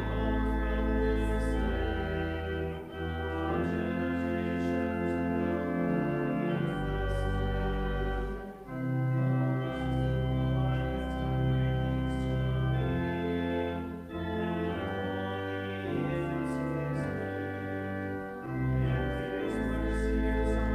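Church organ playing slow, sustained chords over held bass notes, the chords changing every second or two.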